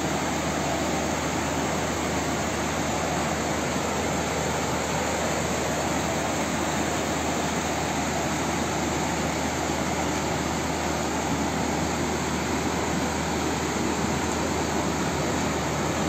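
Muddy floodwater rushing through a street: a continuous, even rushing noise that holds steady throughout.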